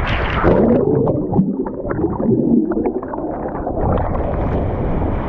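A splash as someone plunges into a waterfall pool, then about three seconds of muffled underwater bubbling and gurgling heard from below the surface, before the steady rush of the waterfall comes back near the end.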